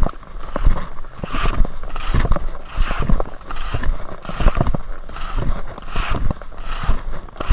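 Skis scraping and hissing over packed snow in quick, rhythmic turns, one burst of hiss roughly every three-quarters of a second, with low wind rumble on the microphone.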